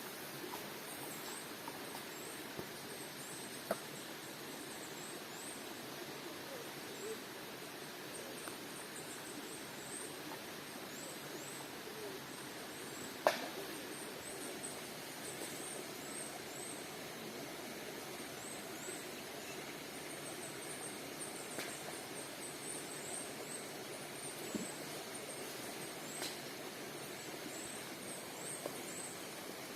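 Outdoor forest ambience: a steady low rushing background with rapid, high-pitched chirping repeating through most of the stretch. A few sharp clicks stand out, the loudest about thirteen seconds in.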